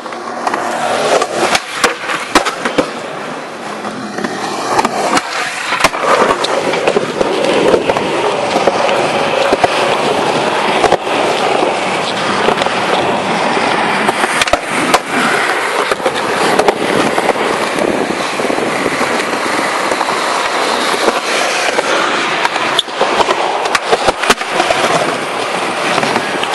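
Skateboard wheels rolling in a continuous rushing noise, broken by repeated sharp clacks of the board and trucks striking the ground and obstacles.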